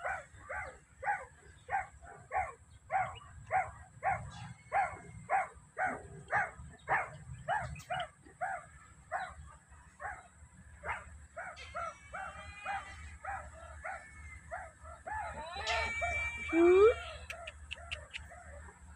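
Meerkats giving a steady series of short, dog-like barking calls, about two a second, thinning out after about ten seconds. Near the end a louder call rises in pitch.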